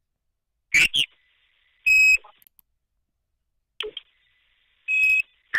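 Phone-line audio on a voicemail: two short high beeps about three seconds apart, mixed with brief garbled robotic voice fragments, each burst cut off by silence. These are the strange tones and robotic voices heard before the caller speaks on calls from a German cell phone, which the uploader suspects are signs of wiretapping.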